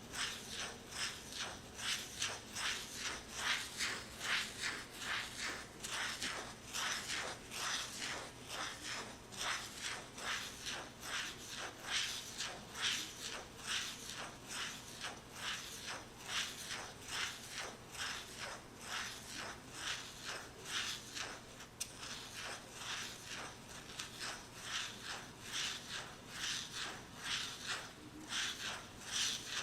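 Fingernails working over a wooden lid in quick, even strokes, about three a second, with a crisp, scratchy edge.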